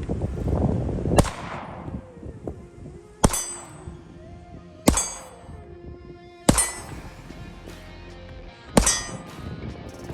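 Steel targets struck by bullets: five sharp metallic clangs about a second and a half apart, each ringing on briefly after the hit.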